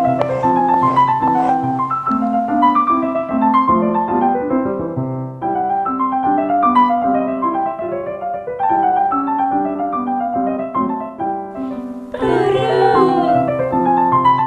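Background piano music, a gentle melody with a steady accompaniment. About twelve seconds in, a brief wavering, warbling sound cuts across the music for a second or so.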